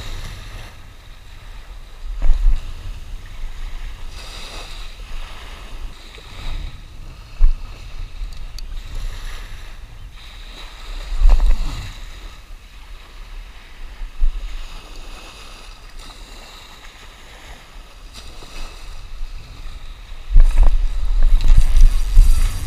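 Small surf waves washing up and draining back along the shore, swelling every few seconds, with wind buffeting the microphone. The wind rumble grows much louder near the end.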